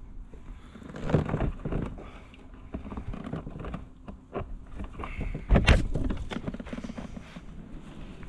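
Knocks, thumps and scuffs from handling gear in a kayak, irregular, with the loudest knock about five and a half seconds in.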